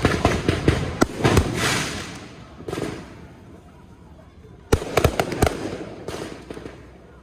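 Fireworks going off in salvos: a rapid string of sharp bangs at the start, a single burst near the three-second mark, and another tight cluster of loud bangs a little past halfway, each group fading away afterwards.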